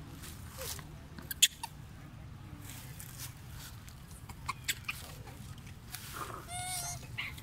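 A few sharp clicks, the loudest about a second and a half in, then near the end a young long-tailed macaque gives a short, wavering high-pitched squeal.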